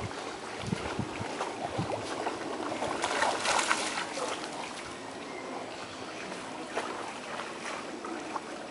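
Dogs wading and splashing through shallow pond water, with a louder burst of splashing about three to four seconds in as the bullmastiff runs out of the water.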